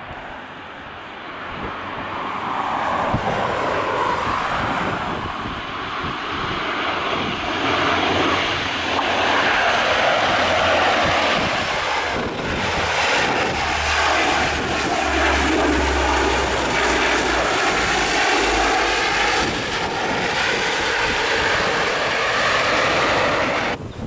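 De Havilland Canada Dash 8 twin-turboprop airliner on final approach with its propellers and engines droning, growing louder over the first few seconds as it closes in. The whine slides down in pitch as it goes by. The sound cuts off suddenly near the end.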